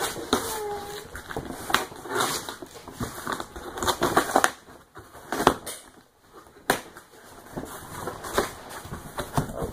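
Cardboard box flaps being pried open and handled by hand: irregular crackling and scraping of cardboard with scattered sharp knocks, easing off for a moment past the middle.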